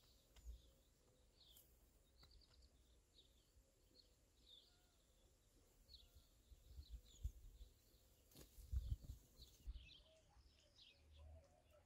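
Small birds chirping faintly and repeatedly, with a few low thumps in the second half.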